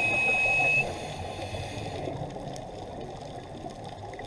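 Underwater sound of a scuba diver's breathing gear: a steady high whistle that stops abruptly under a second in, over a low bubbly water hiss that carries on after it.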